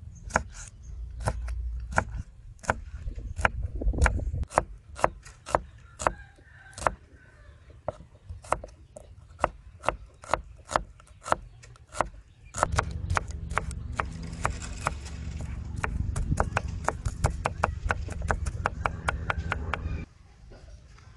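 Chef's knife chopping red chilies and then shallots on a wooden chopping board, sharp regular strikes about two a second, with a low rumble under parts of it. The chopping stops shortly before the end.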